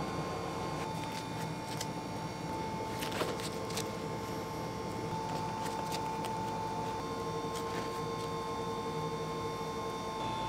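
Steady electrical hum of bakery kitchen equipment, with a few light taps and rustles about three to four seconds in and again near eight seconds as gloved hands set pretzel bun tops onto the buttered halves on a wire rack.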